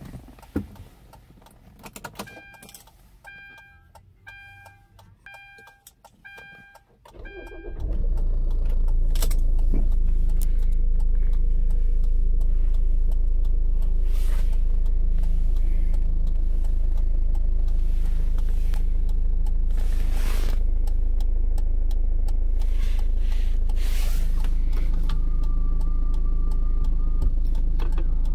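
A dashboard warning chime beeps about six times at even spacing. Then the 2010 Hyundai Santa Fe's four-cylinder turbo diesel starts, about seven and a half seconds in, and settles into a steady idle, heard from inside the cabin.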